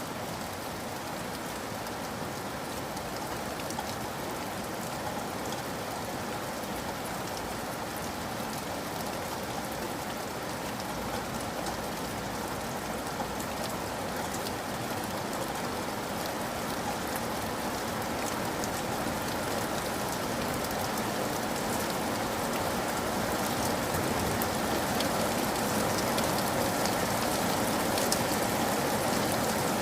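Steady rain falling, a dense hiss with many small drop ticks, growing gradually louder through the stretch.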